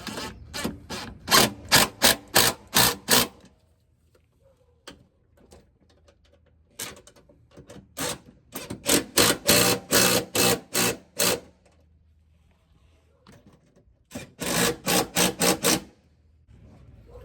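Cordless drill snugging the step-rail mounting bolts: three runs of rapid, even clicks, near the start, in the middle and near the end.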